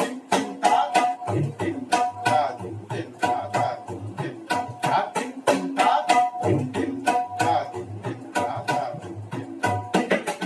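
Tabla played solo in a fast, even run of strokes, several a second: ringing pitched strokes on the dayan (treble drum) mixed with deep, booming strokes on the bayan (bass drum), playing the teentaal cycle.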